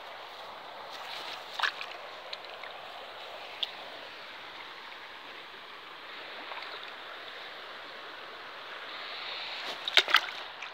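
Shallow river water running steadily, with a few sharp splashes about ten seconds in as a caught chub is slipped back into the water by hand. A single short knock about a second and a half in.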